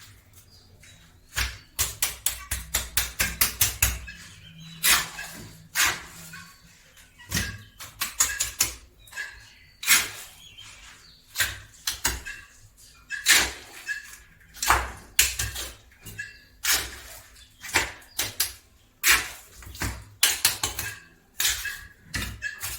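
Irregular series of sharp knocks and clicks, some coming in quick runs of several a second, others spaced a second or more apart.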